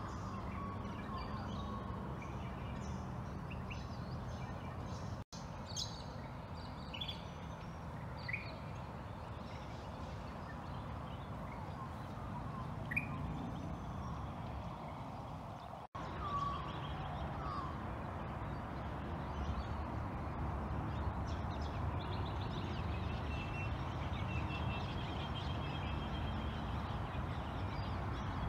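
Outdoor ambience of a steady low background rumble with scattered short bird calls, some chirping and some sliding. The sound drops out for an instant twice, about five and sixteen seconds in, where the recording is cut.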